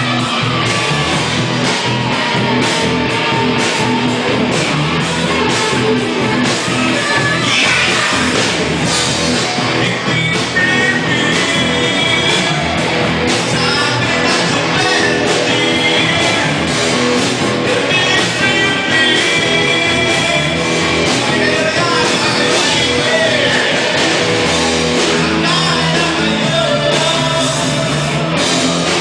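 Loud rock music with a singing voice over a full band.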